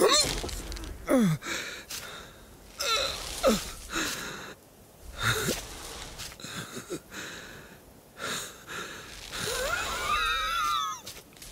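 An animated sheep's voice with no words: wheezing breaths and short sighs or groans that fall in pitch, every second or two. Near the end comes a longer wavering whine.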